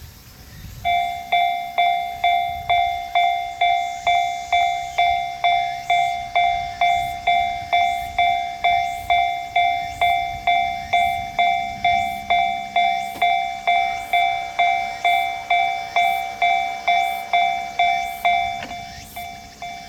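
Japanese railway level-crossing warning bell sounding its 'kan-kan' alarm: even ringing strokes about two a second, starting about a second in and getting quieter near the end.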